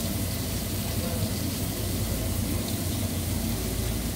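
Steady hiss and low rumble from a gas stovetop, where meat is frying in its own juices in a pan over a lit burner.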